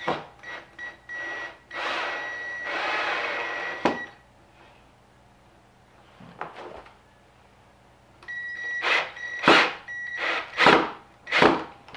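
Cordless drill-driver with a Robertson bit driving a wood screw slowly into a wooden toboggan crossbar, in short trigger pulses of motor whine. There is a longer run about two seconds in that ends in a sharp click, then a pause, then a quick series of short pulses near the end.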